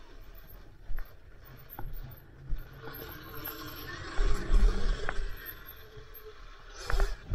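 Sur-Ron electric dirt bike ridden over a rough forest trail: a faint steady motor whine under chain and frame rattle, with sharp knocks from bumps. The heaviest jolts come about four to five seconds in and again near the end.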